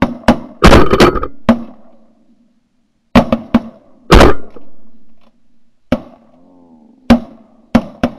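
Shotgun shots fired at flying teal: about a dozen sharp blasts in quick volleys, several close together in the first second and a half and another pair around three to four seconds in.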